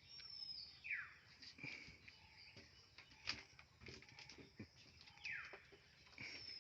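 Faint bird calls: two short calls about four seconds apart that slide quickly down in pitch, faint high whistles, and scattered soft clicks.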